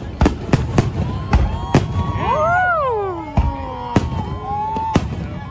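Fireworks bursting overhead: a rapid string of sharp bangs in the first two seconds, then a few single bangs about a second apart. Near the middle, a pitched tone rises and then falls away over the bangs.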